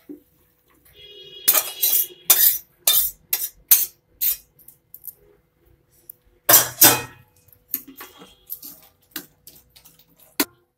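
A metal spatula scraping and knocking against a steel cooking pot in a series of irregular sharp clinks as cooked cabbage is stirred, loudest about two-thirds of the way through.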